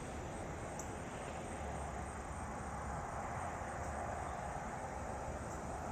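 Steady outdoor background noise with no distinct events: an even hiss and low rumble.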